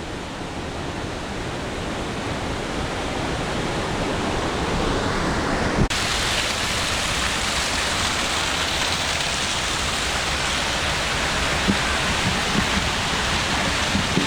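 A waterfall in full spate after heavy rain: a steady, loud rush of falling water. About six seconds in the sound changes abruptly to a brighter, slightly louder rush.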